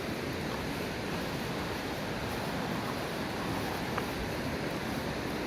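Steady rush of a fast-flowing glacial meltwater stream.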